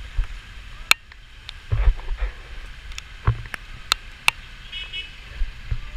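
Scattered sharp ticks of raindrops striking a waterproof camera housing, over low gusty wind rumble on the microphone. A brief faint high chirp comes about five seconds in.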